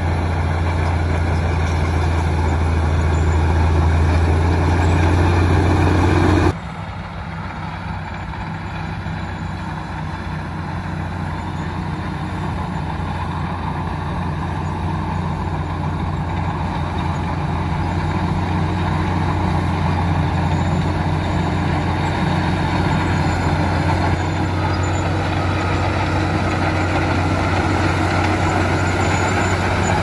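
LiuGong crawler bulldozer's diesel engine running steadily under load as it pushes soil with its blade. The level drops suddenly about six seconds in, then grows gradually louder.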